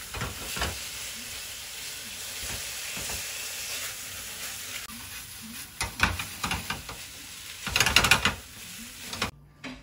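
Tomatoes and scrambled egg sizzling steadily in a frying pan on a gas stove while being stirred with a wooden spoon. Louder scraping and knocking strokes of the spoon against the pan come around the middle and again near the end.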